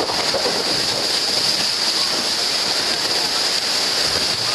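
Steady rush of water and wind as a racing sailboat moves under way, with a constant hiss.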